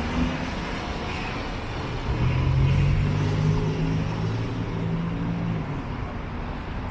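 City street traffic: a steady rumble of passing cars, with a heavier vehicle's low engine hum rising out of it about two seconds in and fading after a few seconds.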